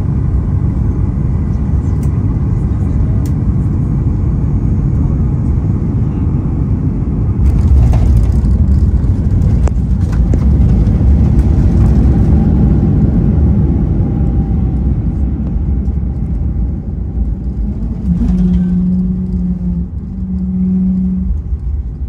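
Boeing 737 MAX 8 rolling out on the runway after touchdown, heard inside the cabin over the wing: a loud, steady rumble of engines and wheels. It swells about seven seconds in and eases off as the aircraft slows. A short steady hum comes in near the end.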